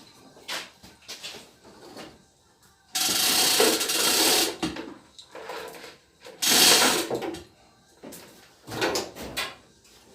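Ratcheting winch being cranked in bursts, the pawl clicking: two longer runs about three and six and a half seconds in, with shorter clicks between.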